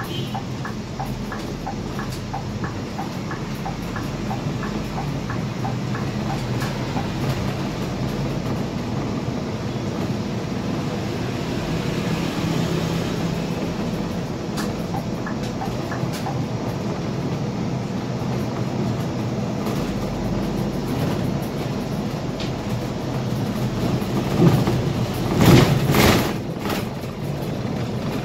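Scania K320IA city bus heard from the driver's cab while driving: a steady engine and road drone. A regular light ticking runs through the first several seconds, and a louder noise swells and fades near the end.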